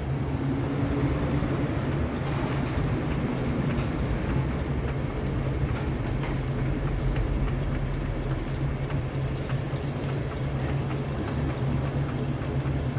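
Fiat Fastback's front driveline clattering and knocking continuously and irregularly over a steady low engine hum. The mechanic traces it to a worn inner CV joint (tulip) with play inside the gearbox, rattling a lot.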